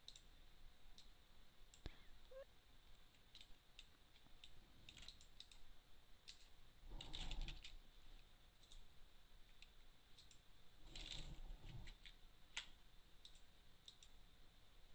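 Faint, scattered clicks of a computer mouse and keyboard, with two softer, longer rustling sounds partway through.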